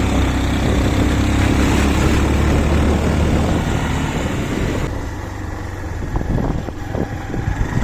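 Motorcycle engine running steadily while riding, with road and wind noise. About five seconds in the engine note fades and a few knocks and rattles come through.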